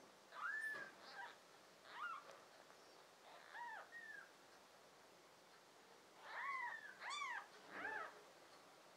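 Newborn kittens mewing: short, high-pitched cries, about eight in all, coming closer together near the end.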